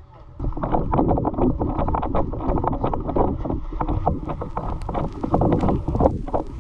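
Wind noise and rustling on the microphone with many small knocks and scrapes, starting about half a second in, typical of a player moving fast through vegetation.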